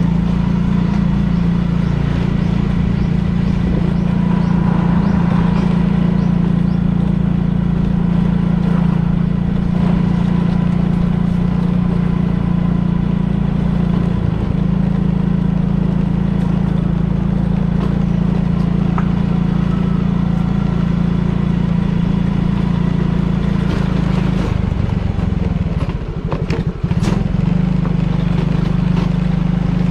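Small motorcycle engine running steadily at low riding speed. Near the end its note drops and wavers for a couple of seconds as the throttle eases, then settles back to a steady run.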